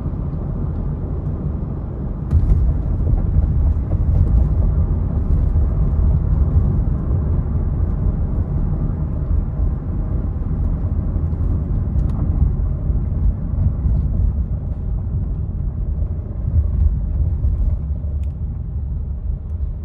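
2014 Honda Odyssey's 3.5-litre V6 running in gear with a steady low rumble, the rattle that shows when the van is in gear. The level steps up about two seconds in with a knock, and a few faint clicks come and go after that.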